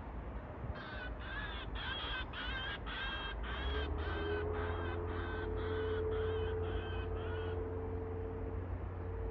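A crow cawing in a long, even series of short calls, two to three a second, for about seven seconds. About four seconds in, a distant aircraft engine drone comes in under it.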